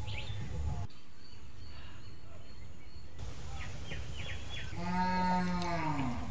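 A cow mooing once, about five seconds in: one long call that drops in pitch at its end, with birds chirping just before it.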